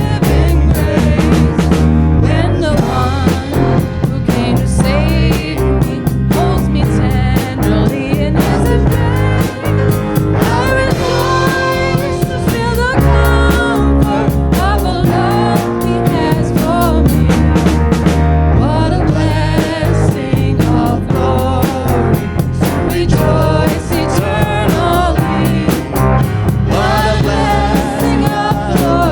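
Live worship band playing a song with singing, drums and bass.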